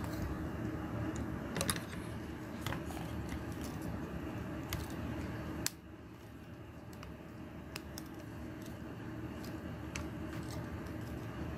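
Plastic clicks and rattles of a Transformers Studio Series Blitzwing action figure as its parts are moved by hand and pegs snapped into slots during transformation, scattered irregularly over a steady low background noise that drops about halfway through.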